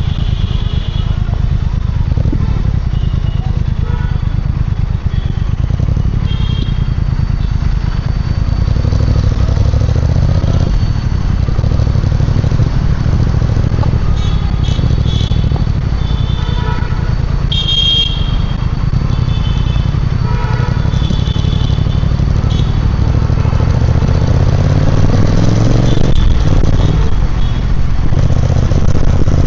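Triumph Speed Twin 1200's parallel-twin engine and exhaust running steadily under way, its pitch rising as it accelerates in the last few seconds. Brief high-pitched tones come and go over it.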